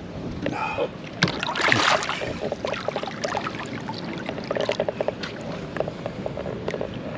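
Water splashing and sloshing as a large snook is held at the surface to be revived, the fish kicking in the hand; the strongest splashing comes about one to two seconds in.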